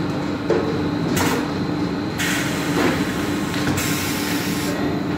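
Paint filling machine running with a steady hum, broken by a few short bursts of hiss from its pneumatic air lines, the longest near the end.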